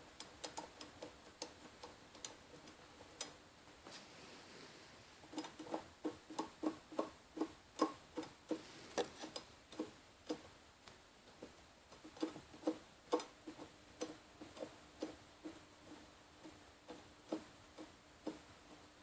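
Spiegler floating motorcycle brake disc rattling: the rotor clicks and clacks against its carrier at the floating rivets in uneven, metallic knocks, sparse at first and then quicker from about five seconds in. The owner is unsure whether this play in a used disc is normal.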